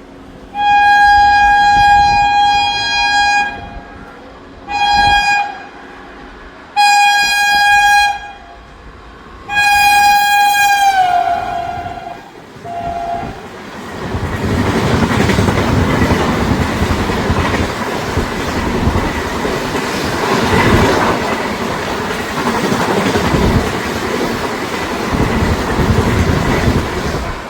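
Indian Railways WAP-4 electric locomotive horn sounding four loud blasts (long, short, long, long), the pitch of the last sliding down as the locomotive passes, then a brief lower toot. The Super Fast Express's coaches then rush past with loud wheel rumble and clickety-clack over the rail joints.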